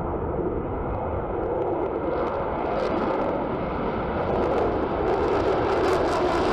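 Fighter jet taking off on afterburner, a steady jet roar growing louder and brighter as it accelerates and lifts off, with crackle coming in from about two seconds in.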